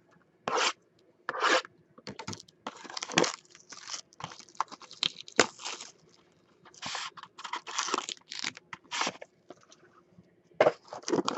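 Plastic shrink-wrap being torn and crinkled off a sealed box of 2016 Panini Origins football cards, and the cardboard box being opened and handled, in a series of irregular rustles and scrapes with short pauses.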